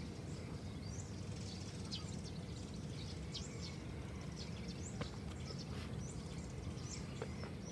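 Outdoor ambience: a steady low rumble with small birds chirping repeatedly, and a few faint clicks near the end.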